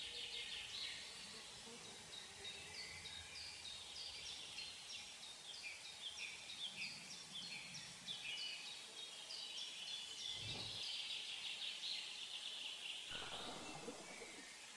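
Faint outdoor ambience: many short, high chirping calls, bird-like, repeating several times a second over a low hiss and fading out near the end. A soft low thud comes about ten seconds in.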